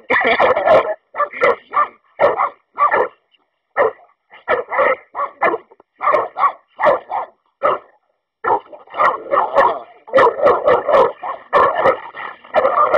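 Two American Staffordshire terriers fighting: a rapid string of short, loud barks and yelps, broken by two brief pauses, one a few seconds in and one about eight seconds in.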